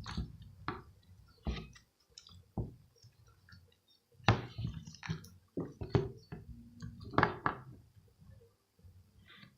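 Slime being squeezed and worked by hand: irregular wet squelches and small clicking pops, the loudest about four, six and seven seconds in.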